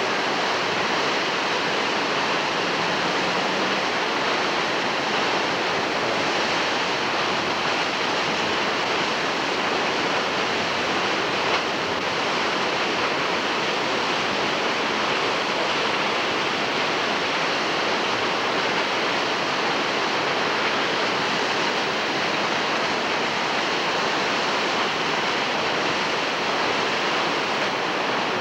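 Steady rush of whitewater from a dam's outlet release of about 5000 cubic feet per second, pouring through a concrete channel into the river below, an even, unbroken noise throughout.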